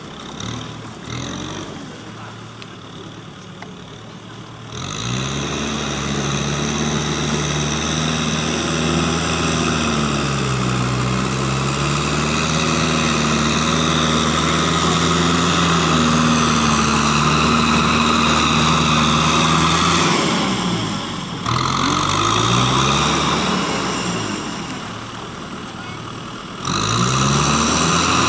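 Kubota M6040 tractor's four-cylinder diesel engine working through wet paddy mud. It is fainter at first, gets louder about five seconds in and runs steadily, its pitch dipping and recovering a few times as the load changes, then drops back briefly near the end before rising again.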